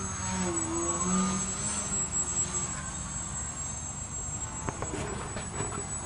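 Brushless electric motor and propeller of a small foam delta-wing RC plane whining in flight, the pitch wavering over the first few seconds before fading, over steady wind noise on the microphone. A few light clicks about five seconds in.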